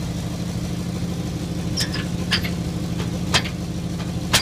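1969 Ford Mustang GT's V8 idling steadily, with a few sharp clicks and knocks from the hood being lowered and pressed shut, the loudest near the end.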